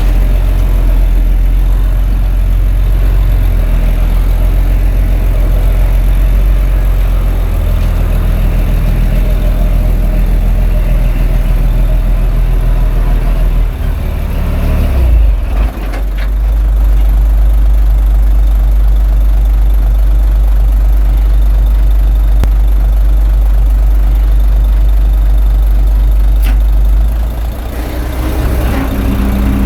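Komatsu D21A bulldozer's diesel engine running steadily. The engine note dips and shifts briefly about halfway through and again near the end.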